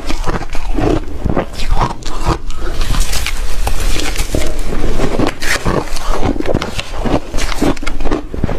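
Close-up crunching and chewing of ice, with dense, irregular loud crunches that go on without a break.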